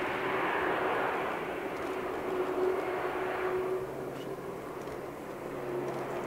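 Boeing 767-300 airliner's twin jet engines running as it rolls past on the ground: a steady rushing noise with a faint steady hum underneath, easing slightly about four seconds in.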